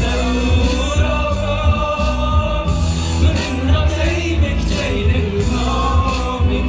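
Live amplified music: a man sings into a handheld microphone over a heavy, steady bass beat.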